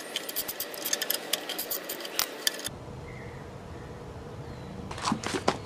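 Quick, irregular metallic clicking of a socket wrench undoing the two bolts that hold the copper power terminals on a 2013 Nissan Leaf's electric drive unit. After a short pause, a second burst of clicks and knocks comes near the end.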